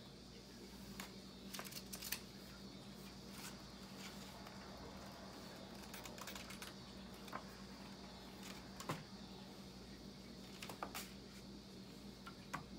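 Pages of a small book being flipped and fanned by hand: soft paper flicks and rustles, a couple of dozen short ticks scattered irregularly, over a faint steady hum.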